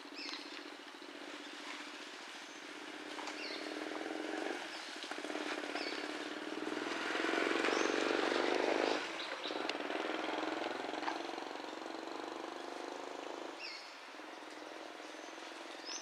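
A motor engine runs steadily, swells to its loudest around the middle and then falls away suddenly, with a few short, high chirps throughout.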